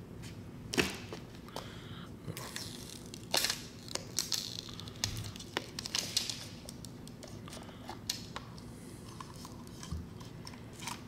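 Amazon Echo Spot's plastic casing being pried and separated by hand: irregular sharp plastic clicks, the loudest about a second in, with short scratchy, rustling bursts between about two and seven seconds in.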